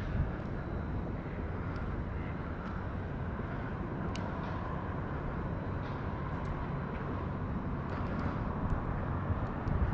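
Steady low rumble of distant city traffic, with a few faint light clicks.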